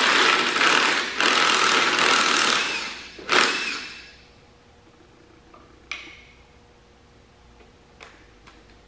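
Cordless impact driver with a socket rattling on a bolt at the tractor's engine block, in several bursts over the first three seconds and one short burst just after. A few faint clicks follow.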